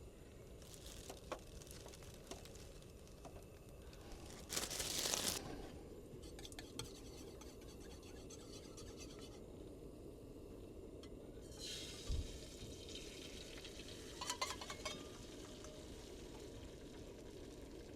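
Small handling noises, light clinks and scrapes of cookware, over a steady low background noise, with a brief louder rustle about five seconds in and a hissing stretch later on.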